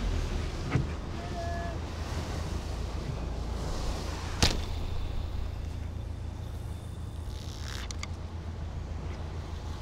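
A heavy offshore spinning rod cast: a swish builds to a sharp crack about four and a half seconds in as the lure is thrown. A couple of light clicks follow near the end, over the steady low hum of the boat and wind.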